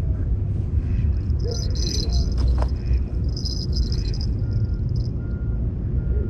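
Fishing gear being handled at the water's edge, giving two short bursts of rustling over a steady low rumble. A faint beep repeats about every three-quarters of a second in the second half.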